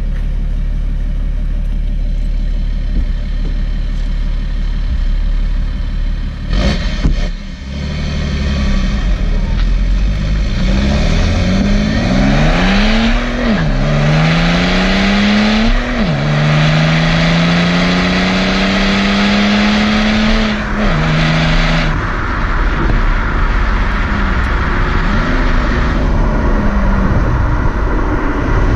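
Exhaust of a BMW E91 diesel straight-six with a downpipe, a straight pipe in place of the front muffler and a stock rear muffler, heard at the tailpipe. It runs low and steady at first, then pulls hard: the note climbs, drops at two gear changes and climbs again, and it falls back as the throttle is eased about three quarters of the way in.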